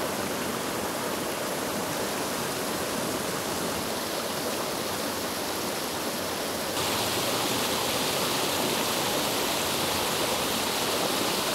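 Shallow creek water flowing, a steady rushing noise. A little under seven seconds in, the sound turns brighter and slightly louder.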